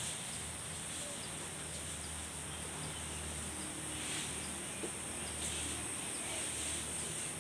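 Steady high-pitched chirring of insects, with faint quick ticks in it, over a low steady hum.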